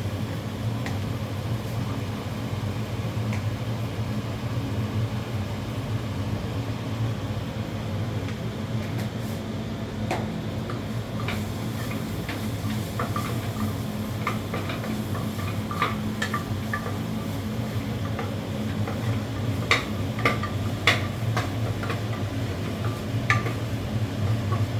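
A spoon stirring and scraping a pot of spice masala as it fries, with a sizzle over a steady low hum. Clicks of the spoon against the pot come more often in the second half.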